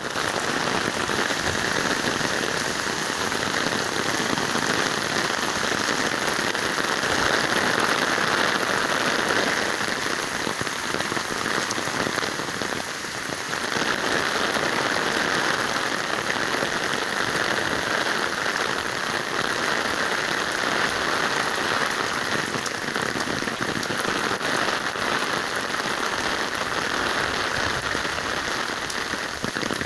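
Heavy rain pouring onto pavement, road and parked cars: a dense, steady hiss.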